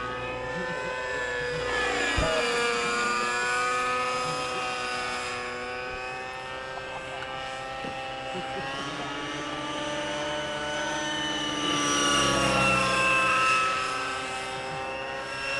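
Two radio-controlled model helicopters, a nitro Align T-Rex 600 and an MS Composite Swift, flying together: the buzz of their engines and the whine of their rotors overlap, each pitch rising and falling as they manoeuvre, swelling louder about three quarters of the way through.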